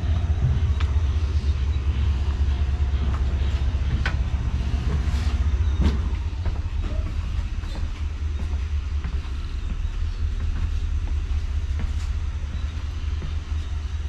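Passenger train carriage heard from inside: a steady, heavy low rumble with scattered sharp knocks and rattles.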